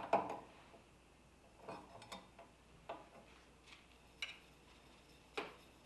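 A few faint, scattered clicks and light taps of a steel knife blade and its hanging wire being handled at a PVC-pipe etch tank, as the blade is lifted out of the ferric chloride to check the etch.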